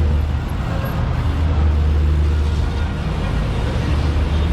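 A motor vehicle's engine running steadily close by, a low hum under road noise.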